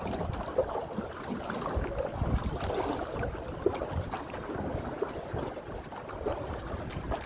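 Wind gusting over the microphone in uneven low rumbles, with small lake waves lapping and splashing.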